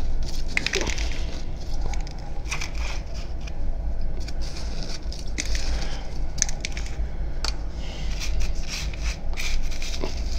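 Potassium hydroxide flakes crunching and rattling as a gloved hand pushes them into a plastic jug, in irregular crackly bursts over a steady low hum.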